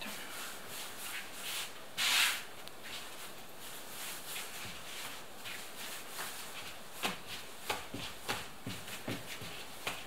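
Hands working yeast dough for pirozhki: soft rubbing and rustling with scattered light taps. There is a louder rustle about two seconds in and a run of sharper taps in the second half.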